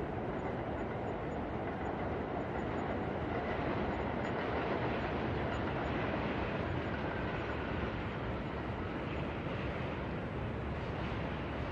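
New York City night ambience heard from a rooftop: a steady wash of distant city noise, swelling a little around the middle.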